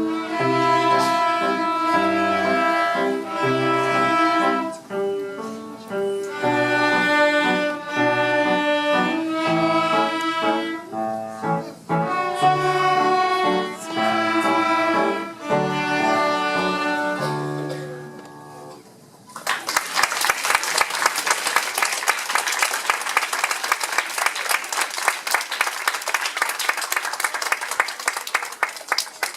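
Children's string ensemble of violins and cellos playing a bowed piece that ends about 18 seconds in, followed by audience applause.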